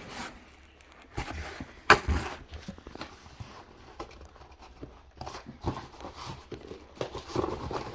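Cardboard shipping box being opened and handled: irregular rustling, scraping and tearing of cardboard, with a sharp knock about two seconds in.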